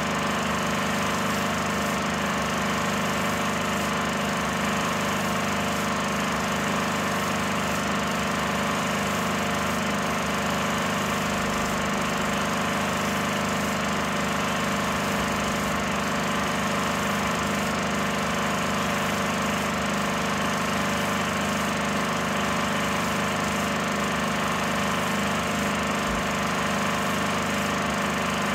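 16mm film projector running with a steady mechanical whirr.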